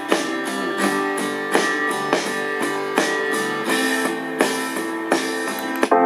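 Guitar music with a chord strummed about every 0.7 s, played from a micro SD card through an Ionyx BO-01 Bluetooth speaker.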